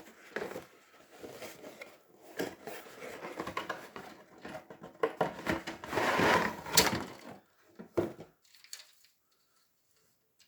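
Cardboard box and plastic miniature sprues being handled: irregular rustling, scraping and light clicks, loudest about five to seven seconds in, stopping about eight seconds in.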